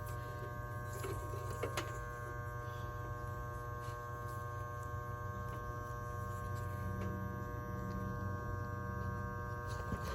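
Steady electrical hum with several steady tones held throughout, with a couple of faint clicks in the first two seconds.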